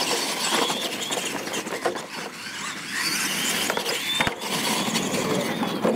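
Electric R/C monster trucks racing flat out side by side: motors and gear trains whining, tyres churning dirt, with sharp knocks about two seconds in and past the four-second mark as they hit and land off the ramps.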